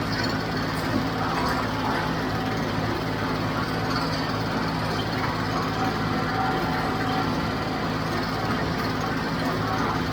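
John Deere 5055 diesel tractor engine running steadily at working speed while pulling a square baler through the hay.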